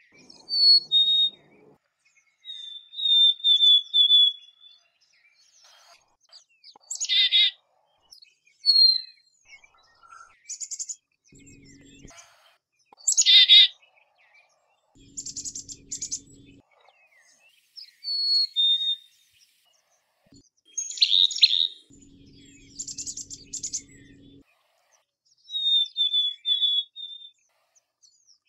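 Black-capped chickadee calling: clear whistled notes that step down in pitch, like the two-note "fee-bee" song, mixed with harsher, buzzier call notes, repeated every few seconds.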